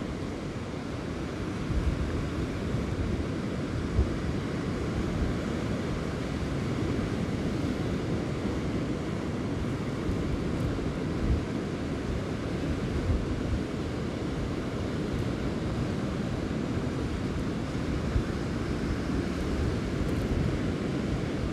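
Wind rumbling on the microphone over rough surf breaking on a shingle beach, with a few sharper low thumps from gusts.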